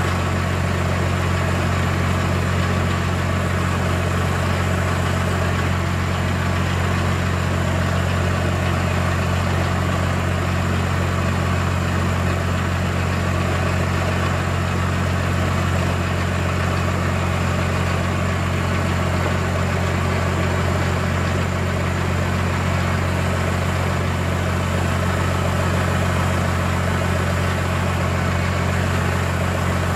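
Loader tractor's engine idling steadily, powering the hydraulics that lift a semi truck's radiator out on straps.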